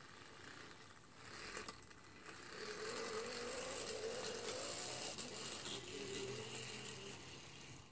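Die-cast Rio Grande Challenger model steam locomotive running on its track: a rough, noisy motor-and-gear whine with a wavering tone, growing louder a couple of seconds in and fading near the end. The owner calls the noise terrible and thinks the mechanism needs lubrication.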